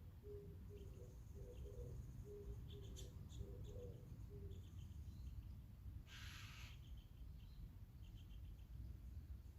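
A dove cooing, a repeated low phrase of paired notes over the first half, with small birds chirping faintly. A single harsh crow caw comes about six seconds in.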